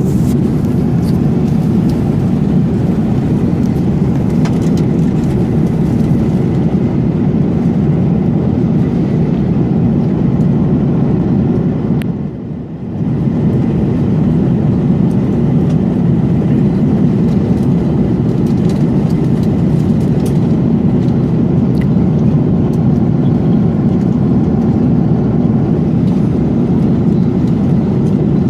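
Steady in-flight cabin noise of an Airbus A330-300: a low, even rumble of engines and rushing air. The noise briefly drops away about twelve seconds in.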